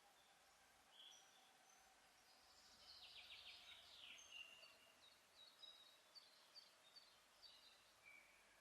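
Faint woodland birdsong: several songbirds singing short high phrases, with a rapid trill a few seconds in and a run of quick repeated notes after it, over a low steady hiss.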